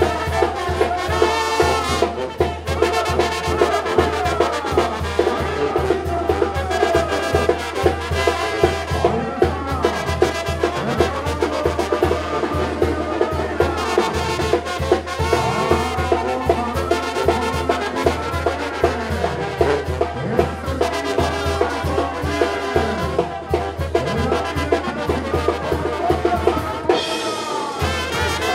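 Live Mexican banda brass band playing an upbeat son: trumpets and trombones carry the tune over a steady pulsing bass and drum beat.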